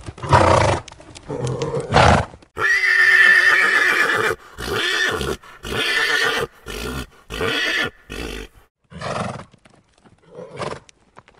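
Horse whinnying: a long neigh begins about two and a half seconds in and breaks into a stuttering run of shorter pulses. A few shorter sounds come before and after it.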